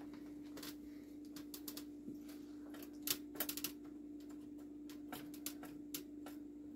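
Irregular light clicks and taps of small objects being handled, a few sharper ones about three seconds in, over a steady faint low hum.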